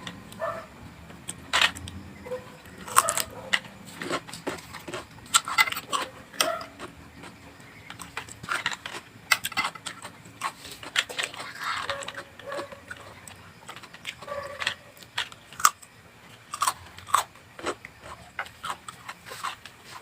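A person biting and chewing crunchy raw vegetables close to the microphone: irregular sharp crunches, several a second at times, with quieter chewing in between.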